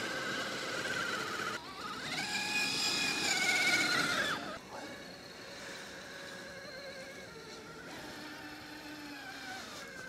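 Axial SCX6 RC crawler's electric drive motor and geartrain whining under throttle: the pitch rises about a second and a half in, holds, and drops away around four seconds in, leaving a fainter steady whine.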